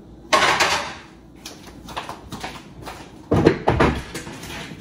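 Kitchen handling noises: a short hissing rush about a third of a second in that fades over a second, then a cluster of heavy knocks and clatter about three and a half seconds in.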